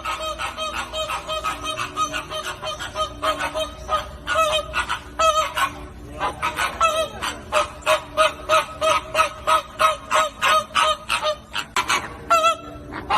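A flock of flamingos honking: many short, goose-like nasal calls overlapping, several a second.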